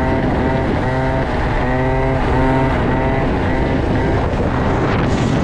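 Small moped scooter engine running at road speed, its note rising and falling again and again as the throttle is rolled on and off. Wind rushes over the microphone, with a stronger gust near the end.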